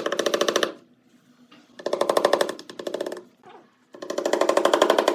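Handheld power tool running in short bursts with a rapid hammering pulse, stopping and starting several times, then running steadily near the end.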